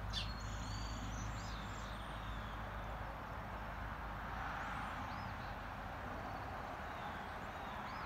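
Songbirds calling at dawn: a thin falling whistle at the start, a held high whistle about a second in, then a few short, faint chirps scattered through. Under them runs a steady low rumble of background noise.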